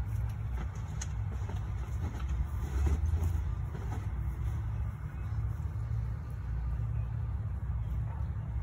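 Low, uneven wind rumble buffeting an outdoor phone microphone, swelling about three seconds in.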